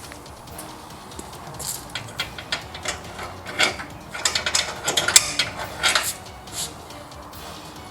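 Metal hand tools clinking and clattering as they are handled, in an irregular run of sharp clicks that starts about a second and a half in and dies away near the end.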